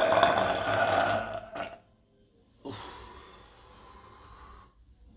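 A long, loud burp, drawn out on a steady low pitch, ends about a second and a half in. After a pause, a fainter sound starts sharply and fades over about two seconds.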